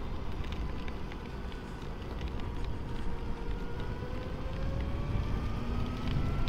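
Motorcycle engine running on the move, under a steady rush of wind and wet-road noise. The engine note dips a little, then climbs steadily through the second half as the bike speeds up.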